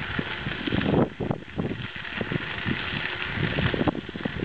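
Wind buffeting the microphone of a moving bicycle, in uneven low gusts, over a steady hiss of bicycle tyres rolling on a crushed-gravel trail.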